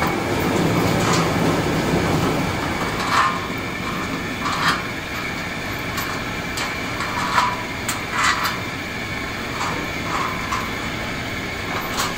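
Light metallic clicks and knocks, about a dozen at irregular intervals, as a steel roller shaft is worked into a flange bearing on a steel machine frame and a nut is fitted by hand. A steady background noise runs underneath.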